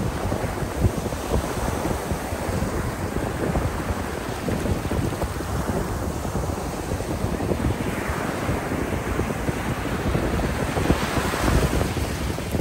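Wind buffeting the microphone over the wash of sea waves on a beach, with a louder swell of surf noise near the end.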